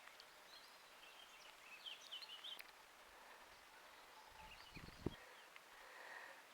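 Faint, short chirping bird calls about two seconds in, over quiet outdoor background, with a brief low thump about five seconds in.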